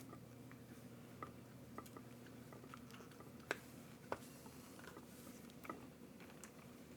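Faint scattered clicks and taps from hands working on the plastic parts and wiring of an RC truck's chassis, about half a dozen in all. The sharpest click comes about three and a half seconds in, and a low steady hum runs underneath.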